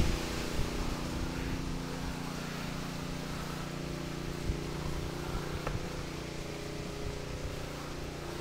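An engine running steadily at a constant speed, with a few faint knocks.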